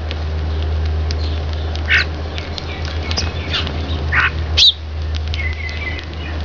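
Eurasian tree sparrows giving a handful of short, harsh chirps that sweep in pitch, the loudest about halfway through, over a steady low hum.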